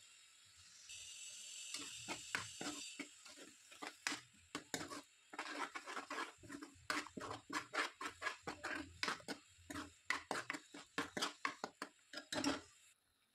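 Kitchen work: quick, irregular knocks and taps of utensils, dozens of strokes over about ten seconds, with a brief hiss near the start.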